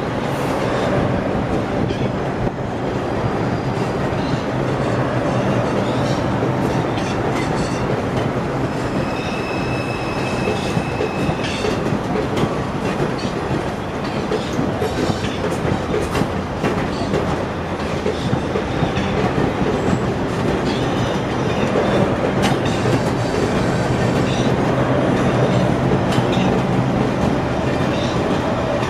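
R142 subway train running past on the tracks, a continuous rumble with repeated clacks of the wheels over the rails. A thin high wheel squeal sounds for a few seconds about nine seconds in.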